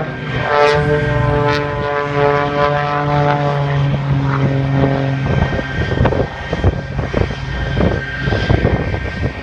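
Propeller airplane engine droning at a steady pitch. About five seconds in, the even drone gives way to a rougher, uneven noise.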